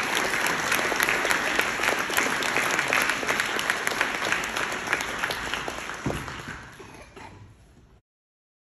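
Audience applauding, a dense patter of many hands clapping that fades away near the end before the sound cuts off to silence.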